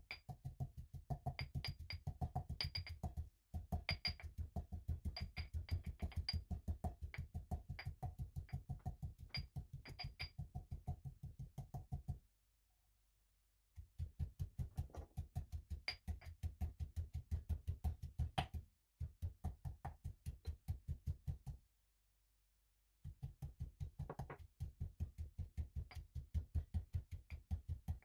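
Marble pestle pounding garlic and ginger in a marble mortar, crushing them toward a curry paste: steady thuds about five a second, in runs broken by short pauses.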